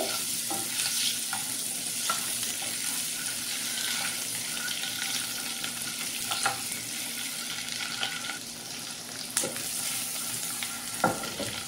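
Whole boiled eggs sizzling in shallow oil in a non-stick frying pan on a low flame, a steady hiss. A wooden spatula knocks and scrapes against the pan a few times as the eggs are turned.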